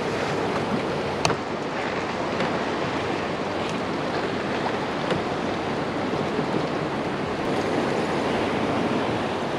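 Steady wash of sea water and wind buffeting the microphone, with one sharp click about a second in.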